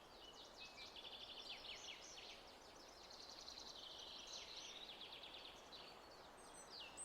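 Faint birdsong: several small birds chirping and trilling in quick runs of repeated notes, with a few short falling whistles, over a soft steady hiss.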